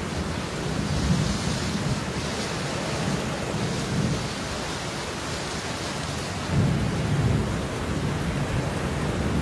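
Steady heavy rain with low rolling thunder, the rumble swelling a few times and loudest about two-thirds of the way through.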